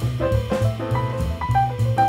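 Instrumental jazz background music with a bass line and a steady drum beat.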